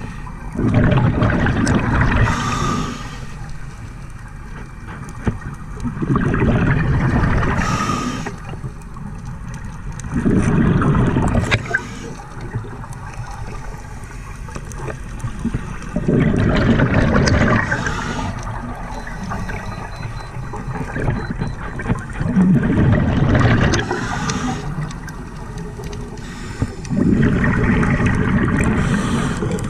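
Scuba diver breathing through a regulator: a rush of exhaled bubbles about every five to six seconds, six times in all, with a quieter hiss between them.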